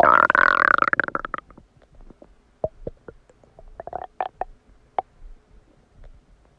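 Human stomach gurgling as it digests a recently eaten cheeseburger. A loud, drawn-out squealing gurgle lasts about a second and a half, followed by scattered faint pops and bubbles.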